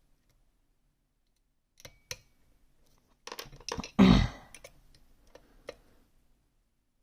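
Lockpicking tools clicking and tapping against an ASSA Twin 6000 lock as picking begins: scattered small clicks, with one loud thump about four seconds in.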